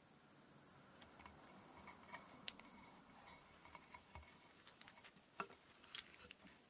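Faint handling sounds from kumihimo braid preparation: soft rustling of cotton thread with scattered light clicks and taps, the sharpest about two and a half seconds in and again in the last second and a half.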